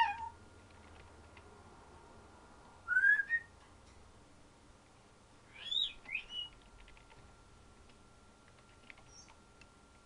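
African grey parrot making short whistled calls: a rising whistle about three seconds in, then a couple of quick chirping whistles around six seconds in, with a few faint clicks between calls.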